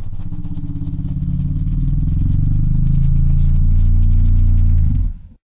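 An engine running with a low, pulsing note that grows louder after about two seconds, then cuts off near the end.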